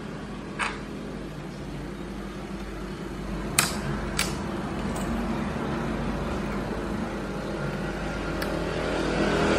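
Plastic keycap of an Asus laptop's End key being pried off its holder with a thin metal tool: a few small sharp clicks, the loudest about three and a half seconds in and another half a second later. Under them a steady drone grows louder near the end.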